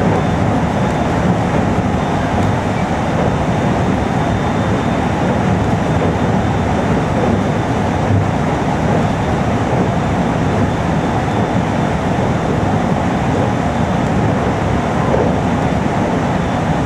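Steady running noise of a 521 series electric train heard from inside a powered car at speed: an even rumble of wheels and running gear on the rails, with a faint steady high tone above it.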